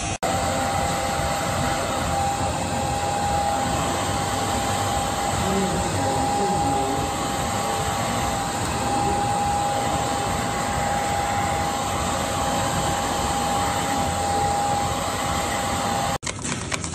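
Handheld hair dryer running on a steady blast: an even rushing of air with a steady whine from its motor. It stops suddenly near the end.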